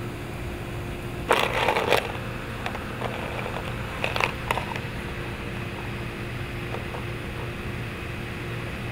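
Ice cubes clattering and crunching in a plastic bowl as golden retriever puppies paw and mouth at them: a loud rattle about a second in lasting under a second, and a shorter one about four seconds in.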